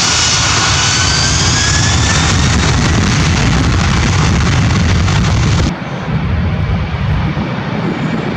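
Boeing 767-300 freighter's twin turbofan engines at takeoff thrust during the takeoff roll: a loud, steady jet roar with thin whining tones rising in pitch over the first two seconds. About two-thirds of the way in, the sound changes abruptly to a somewhat quieter, duller jet roar without the high whine.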